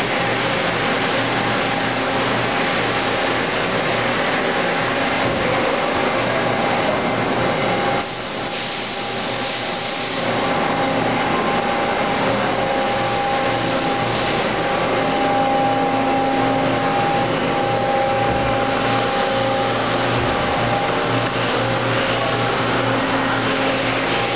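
Steady hum and hiss of shop machinery, with several steady tones held over it.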